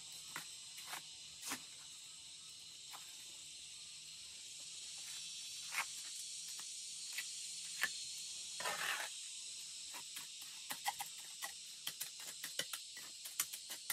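Steady high-pitched insect chorus with scattered light clicks and taps, a brief rustle about two-thirds through, and a quick run of sharp taps over the last few seconds.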